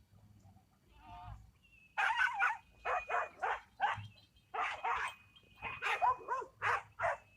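A faint animal call about a second in, then from about two seconds in a rapid run of short, high animal cries, several a second, that goes on to the end.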